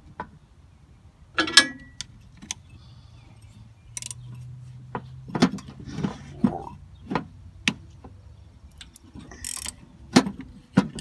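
Hand wrench turning a mounting bolt on a John Deere 4440's failed air-conditioning compressor, with irregular metallic clicks and clinks of steel on steel as the compressor is taken off.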